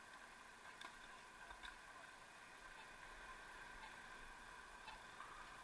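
Near silence: a faint steady hiss with a few faint, widely spaced ticks.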